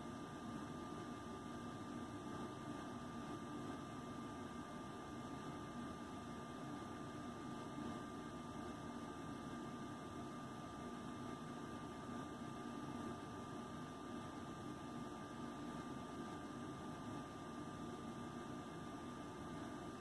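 Steady background hum and hiss of a quiet room with a thin, unchanging high whine; no distinct sounds stand out.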